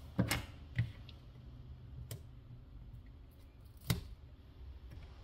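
A few sharp, light clicks and taps, about four in all and the loudest about four seconds in, from the plastic dock case and a small metal hand tool being handled on a silicone work mat.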